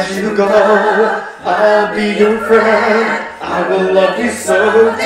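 Music: several layered voices singing choir-like harmonies in short phrases, with brief breaks between phrases and a steady low note underneath.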